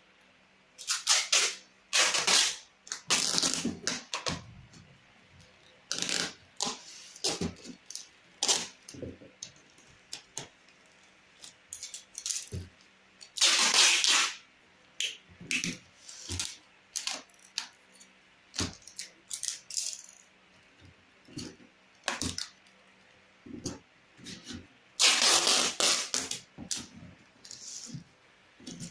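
Irregular rattling, rustling and clattering as drills and their packing material are handled and wrapped, with a few longer noises of about a second each.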